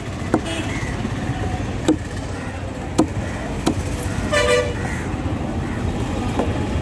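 Heavy curved cleaver chopping through tuna pieces onto a wooden table: four sharp chops. About four and a half seconds in, a vehicle horn toots briefly over steady traffic noise.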